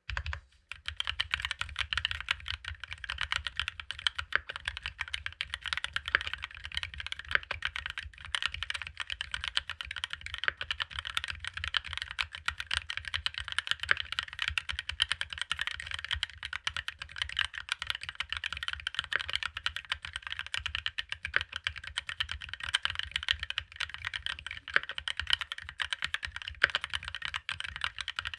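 Mechanical keyboard fitted with GMK Mito ABS keycaps being typed on continuously, a rapid, unbroken stream of key clacks.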